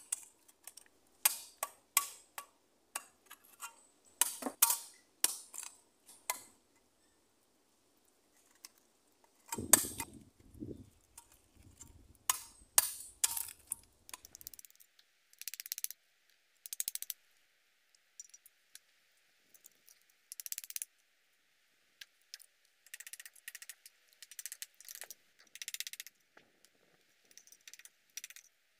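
Irregular sharp clicks and knocks of a blade striking and prying mangrove oysters off the roots, the shells clicking against each other, with a quiet gap of a few seconds early on.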